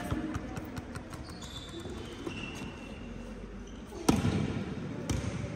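A netball bouncing on a sports-hall court floor: a loud bounce about four seconds in and another about a second later, echoing in the large hall, with smaller knocks earlier and players' faint calls.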